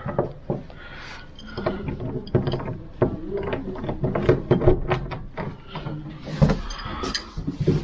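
Key working the lock of a hotel room door: a run of small metallic clicks and rattles from the lock and handle, with a louder clunk about six and a half seconds in as the lock gives.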